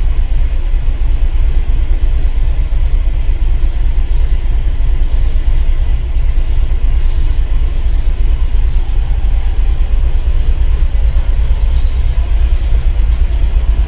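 Steady, loud low rumble of a car driving at speed, heard from inside: road and tyre noise with a drone. The car has a failing wheel bearing, which hums all the time in the rear.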